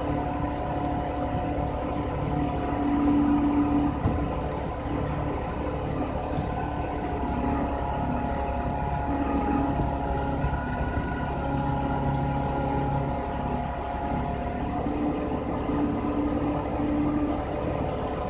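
Diesel engine and hydraulics of an Epsilon M120Z88 timber loader crane running steadily as the crane works, with several steady machine tones that shift in pitch and strength from time to time.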